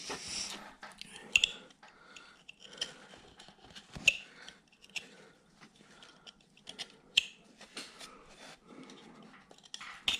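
Hand carving knife cutting into a small wooden figure: irregular sharp snicks as the blade pares off chips, with light scraping between the cuts.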